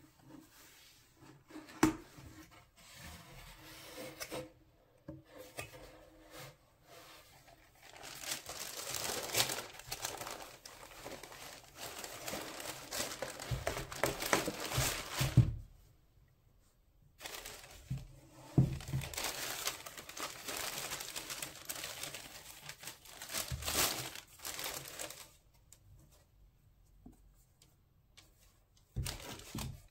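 Tissue paper crinkling and rustling as a cardboard shoebox is opened and its wrapping folded back, with cardboard bumps. There is a sharp knock about two seconds in and two long stretches of rustling with a short pause between.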